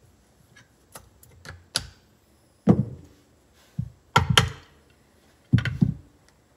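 Mallet striking the cast-aluminium case of a Can-Am Smart-Lock front differential about five times to knock the case halves apart, after a few light clicks of a screwdriver prying at its tabs.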